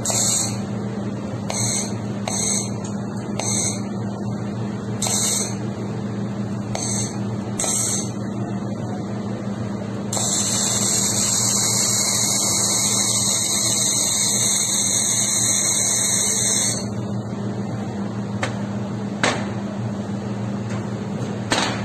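Handheld fiber laser welding gun firing on brass: several short high hissing bursts as tack welds, then one long continuous hiss of about seven seconds as a seam is run, over a steady low machine hum.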